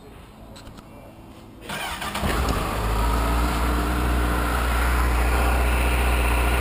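2014 Honda CBR1000RR's inline-four engine turned over on the electric starter about two seconds in, catching almost at once and settling into a steady idle, on the bike's first start.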